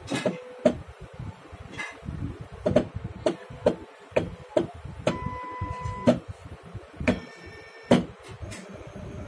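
Two stepper motors under PLC motion control, stepping in short moves that start and stop: a run of irregular clunks, a steady whine for about a second midway, and a buzzing tone that ends in a hard knock near the end.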